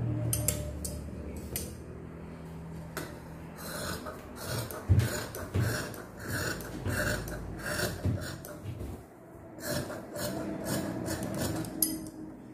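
Tailor's shears cutting through layered fabric in runs of even snips, about two a second, with the cloth rustling as it is handled.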